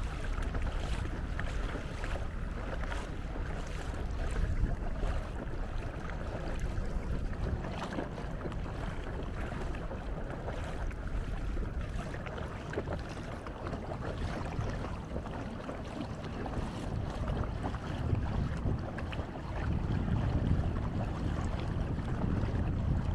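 Wind buffeting the microphone over water washing along the hull of a small canoe under way, a steady rumbling rush with gusts swelling about five seconds in and again near the end.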